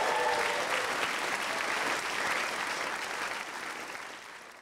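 Theatre audience applauding, steady at first and then fading away over the last second or so.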